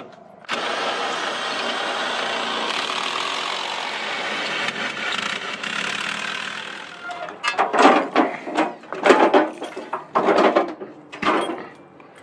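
A small motor starts suddenly and runs steadily for about six seconds, followed by a series of irregular knocks and clatters.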